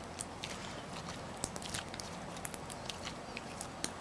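Clear glue slime being kneaded by hand: irregular small sticky clicks and squelches, several a second.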